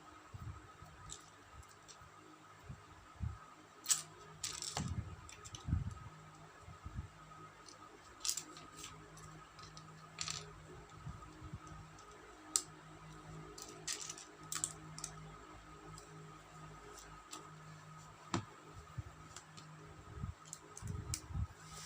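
Small plastic building bricks from a Qman Pokémon set being handled and snapped together: scattered irregular clicks and light rattles, with a few short rustles, over a faint steady hum.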